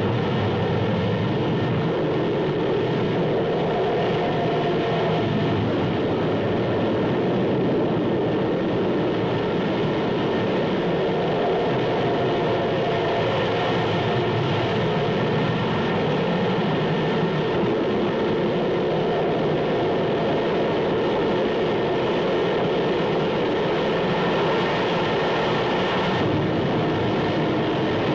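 Steady, loud roar of gas rushing from a blown-out oil well, unbroken.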